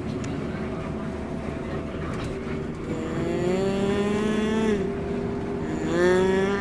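Telolet multi-trumpet bus horn sounding twice: a held chord of several notes that creeps upward in pitch for about two seconds, starting about three seconds in, then a second blast near the end.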